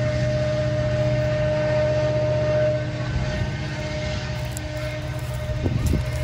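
EMD SD70ACe diesel locomotive under power, its turbocharged two-stroke V16 giving a steady low drone with a steady whine over it; the whine stops about three seconds in and the drone eases a little.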